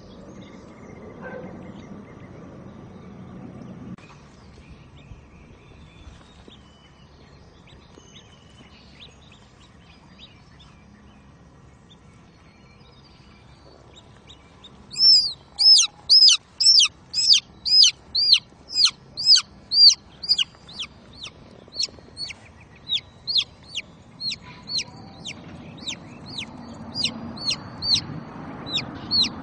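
A baby chick peeping: a rapid run of loud, short, high-pitched peeps, about two to three a second, starting about halfway through. Before that there is only faint background noise.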